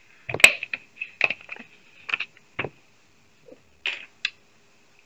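A scattered run of about a dozen short clicks and light knocks: small plastic items such as makeup tools and a water bottle being handled and set down.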